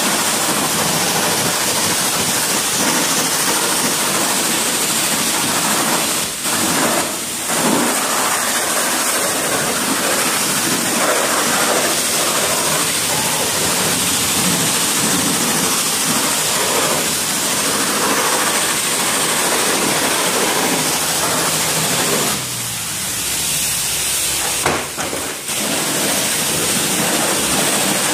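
Pressure washer jet spraying hard against the muddy chassis and body of a large RC truck, a loud steady hiss of water that cuts out briefly a few times.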